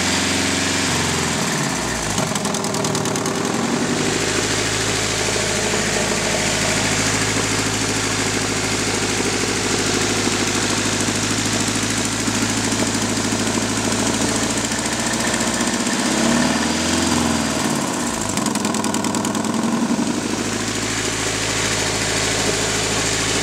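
Nissan KA24DE 2.4-litre inline-four engine idling steadily, revved up and allowed to fall back to idle twice, once right at the start and again about two-thirds of the way through.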